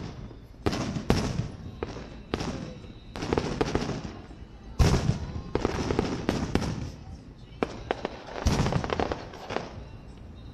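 Aerial fireworks shells bursting one after another in a string of booms, each trailed by a rumbling echo, the loudest about five seconds in. The bursts stop shortly before the end.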